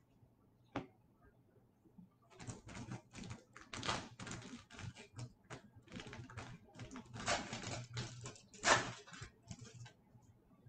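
A foil trading-card pack wrapper crinkling and tearing open in the hands. Two light clicks come first, then about eight seconds of dense crackling.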